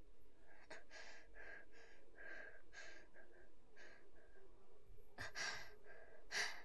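A person panting, out of breath: a run of quick, audible breaths, about one every half second, with two louder breaths near the end.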